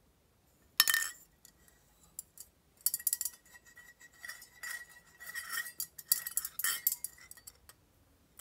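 Small tin pail clinking as it is swung round in a circle on its wire handle and string. One sharp clink comes about a second in, then a run of clinks over a steady metallic ring for several seconds.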